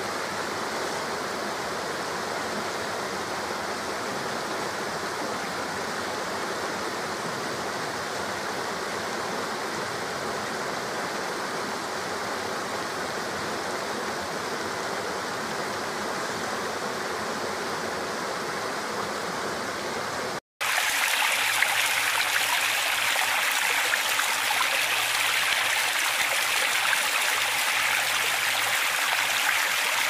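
Steady rushing of a forest stream over small rocky cascades. About two-thirds of the way through it breaks off for an instant, then gives way to a louder, hissier splashing of water spilling down a stepped rock waterfall.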